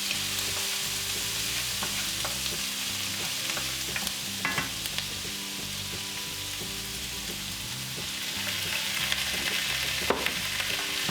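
Onions, broccoli and carrots sizzling steadily in very hot oil in a frying pan, with a few sharp clicks of the stirring utensil against the pan.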